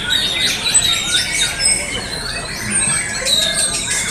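Many caged white-rumped shamas (murai batu) singing at once: a dense tangle of overlapping high whistles and rising and falling notes with no pause.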